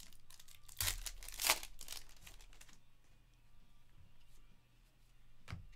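A 2022 Panini Certified Football card pack wrapper crinkling and tearing as it is opened by hand. Most of the crackling comes in the first three seconds, then it goes quieter, with one more crackle near the end.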